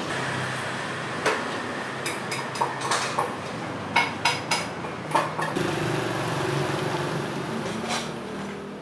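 Clinks and knocks of dishes and metal utensils, about a dozen short sharp strikes over a steady background hum. About halfway through the background changes to a lower, steadier hum.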